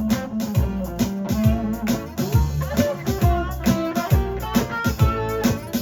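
Rockabilly band playing live: an instrumental break with guitar lines over bass and a steady percussive beat.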